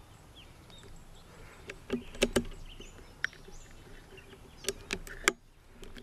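A series of sharp clicks and clacks from a rifle being handled and loaded: its action worked to chamber a round. The loudest come about two seconds in and near the end. Faint bird chirps sound behind.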